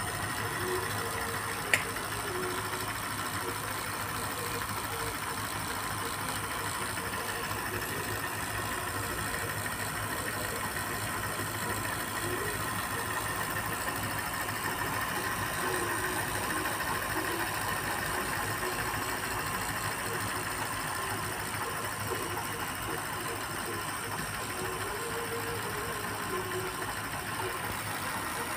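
Fujicascope 8mm film projector running on test with its cover off: the motor and belt-driven mechanism give a steady mechanical hum, with a single sharp click about two seconds in.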